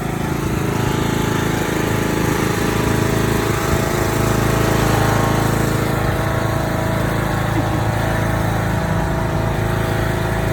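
Small petrol engine of a kiddie tour train running steadily, a lawn-mower-like drone.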